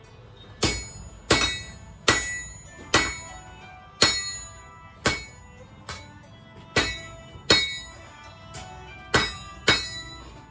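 Hand hammer striking steel rebar on an anvil while forging a knife blade: about a dozen ringing blows at an uneven pace of roughly one a second.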